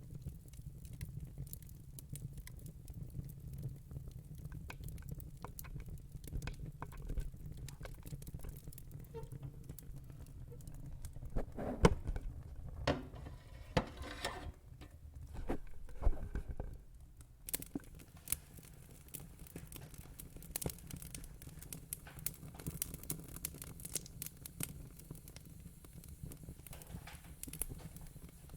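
Fire crackling: irregular small pops and snaps over a steady low rumble, busier and louder for several seconds around the middle.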